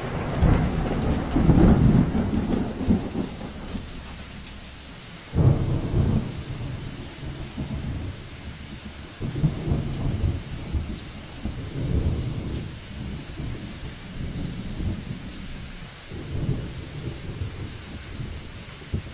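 Heavy storm: rain with repeated low rumbling surges that rise and fade every few seconds, one starting suddenly about five seconds in.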